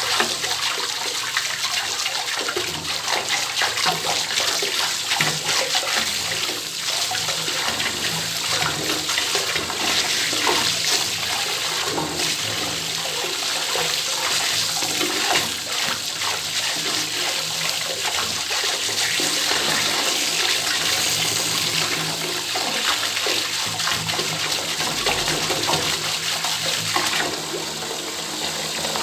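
Open tap running water into a bathtub: a steady, even splashing rush, a little softer near the end.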